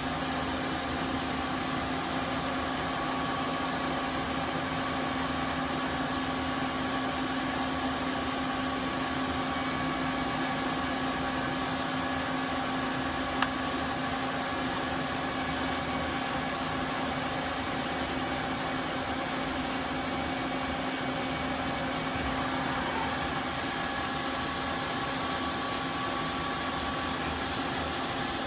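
Daewoo Puma 200LMA CNC lathe running under power: a steady machine hum with a low tone and a few fainter higher tones, and a single sharp click about halfway through.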